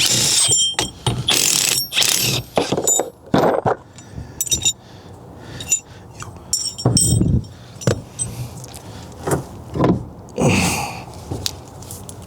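Metal tools and steering-column parts being handled: short, irregular clinks, rattles and scrapes, some with a thin metallic ring, as the steering wheel puller and wheel are taken off the column.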